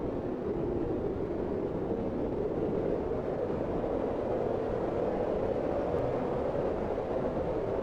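Blizzard wind blowing in a steady, dense rush, deep-toned with gentle swells and no gusting peaks or whistles.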